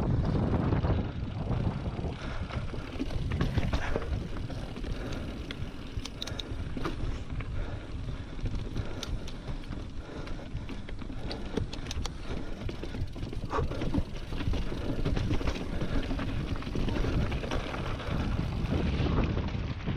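Specialized Stumpjumper mountain bike rolling over a rocky gravel trail: knobby tyres crunching on stones and the bike rattling in frequent small clicks and knocks, under a steady rumble of wind noise on the microphone.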